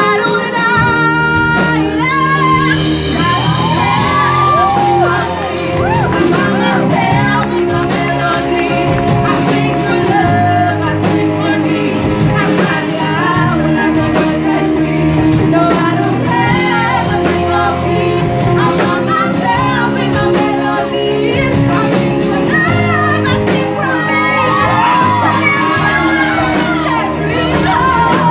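Pop song with a lead vocal singing long held notes with vibrato over a steady instrumental backing.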